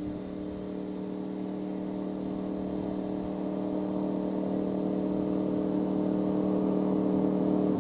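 Honda VFR750F motorcycle's V4 engine through an aftermarket slip-on exhaust, running at steady revs with an even note that grows gradually louder.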